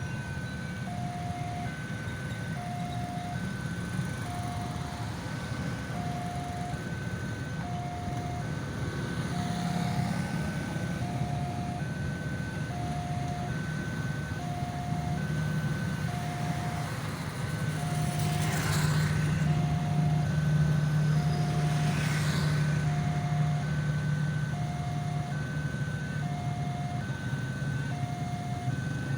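Ambulance siren sounding a steady two-tone hi-lo pattern, a low and a high tone alternating evenly. Under it a low engine drone grows louder in the second half, with two short whooshes of passing noise near the loudest part.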